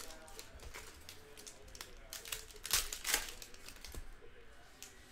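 Trading-card pack wrappers crinkling and tearing as they are opened by hand, in a few short rustles, the loudest about three seconds in.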